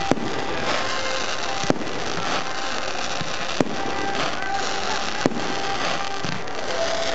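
Fireworks bursting overhead: four sharp bangs, one every couple of seconds, over music playing for the display.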